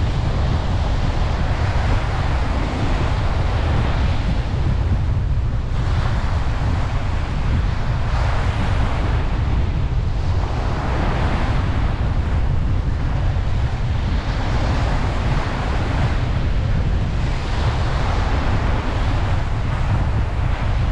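Ocean waves breaking and washing up a beach, each wash swelling and fading every few seconds, over a steady low rumble.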